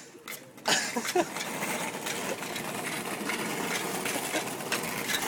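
Golf cart running steadily as it pulls away, the motor noise starting about two-thirds of a second in.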